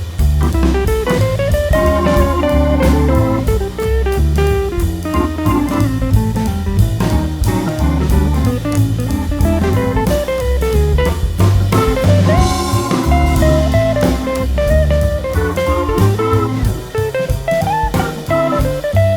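Background music: guitar melody over a steady drum-kit beat, in a bluesy style.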